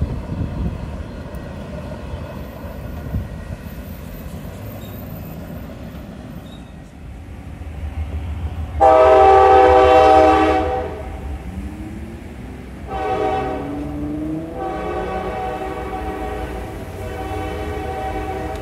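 CSX freight locomotive's air horn, several tones sounding together, blowing for a grade crossing: faint at first, then a loud long blast about nine seconds in, a short blast about four seconds later and a long blast held to the end, over the low rumble of the approaching train.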